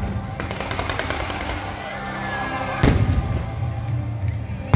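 Fireworks bursting over music: a run of crackling in the first couple of seconds, then loud bangs a little under three seconds in and again at the very end.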